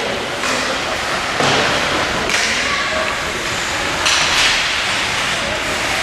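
Ice hockey game in a rink: several thuds, about one a second, over a steady wash of arena noise with faint voices.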